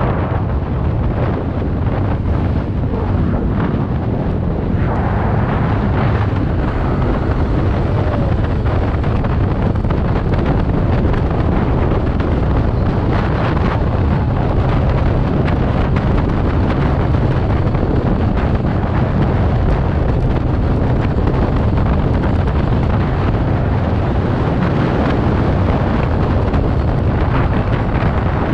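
Wind rushing over the camera microphone on a TVS Ntorq 125 scooter ridden at about 60 to 90 km/h, a loud steady rumble, with the scooter's engine running under it.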